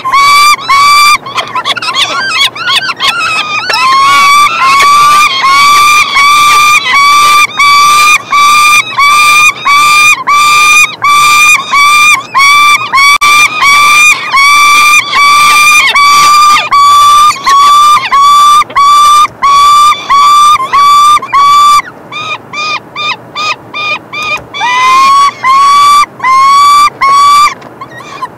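Peregrine falcons calling at the nest during a feeding: a loud run of repeated, rising-onset cries at about two a second, softer for a few seconds near the end.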